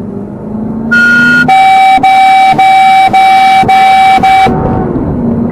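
Vehicle horn honked in about six quick blasts in a row over some three seconds, preceded by a short higher beep about a second in, with an engine running underneath.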